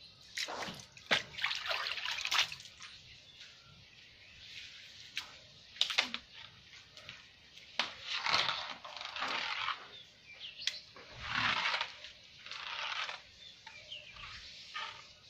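Wet mop swishing and scrubbing across a wet tiled floor in repeated strokes, with a few sharp knocks from the mop and its handle.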